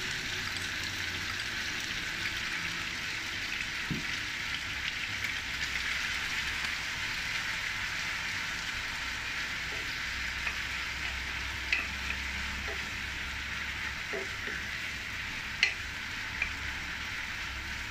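Chicken pieces and teriyaki sauce sizzling steadily in a hot frying pan as a wooden spatula stirs them. A few light knocks of the spatula on the pan come through over the sizzle.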